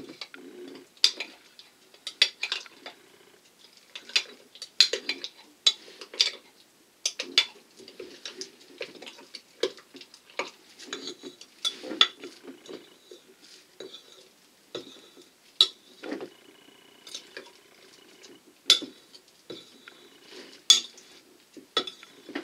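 A metal spoon scrapes and clinks against a glass measuring cup while stirring thick, partly melted plastisol. The clinks and scrapes come irregularly, about one or two a second.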